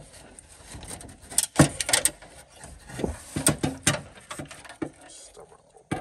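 A hand working inside a pickup's door cavity, handling the door lock actuator and its wiring: irregular clicks, taps and knocks of plastic and metal parts, louder about one and a half seconds and three and a half seconds in.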